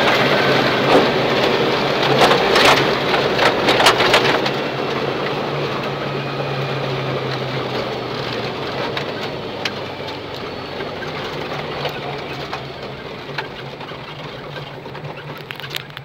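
Rally car on a gravel road heard from inside the cabin: engine running with tyre and gravel noise and stones clattering against the underside, loudest in the first few seconds. The car then eases off and slows, the noise fading steadily.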